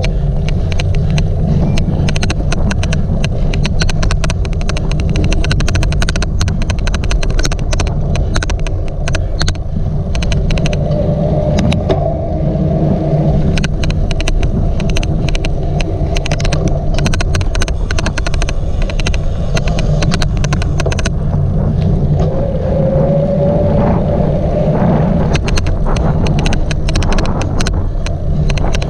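Cyclocross bike ridden over a rough race course: steady, loud wind and tyre rumble with frequent sharp clicks and rattles. A brief whine sounds near the middle and again later.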